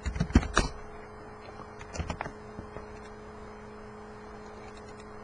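A quick cluster of clicks and knocks at the start and a few more about two seconds in, from a computer mouse and keyboard being worked, over a faint steady electrical hum.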